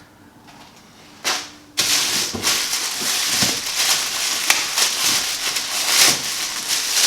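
Quiet at first, then a short rustle a little after a second in. From about two seconds on comes steady loud crinkling and rustling of packaging being handled and pulled open, with scattered sharp clicks.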